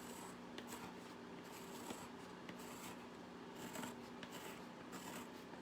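Faint, irregular scratching strokes of a drawing tool on a surface as design lines are sketched, over a low steady hum.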